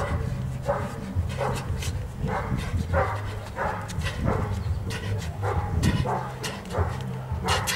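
A dog barking over and over, about one to two barks a second, over a low steady hum.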